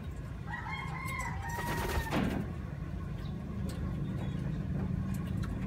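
A rooster crowing once, a held call of about a second and a half starting about half a second in, with a short splash of water from a pigeon bathing in a basin about two seconds in. A steady low hum lies underneath.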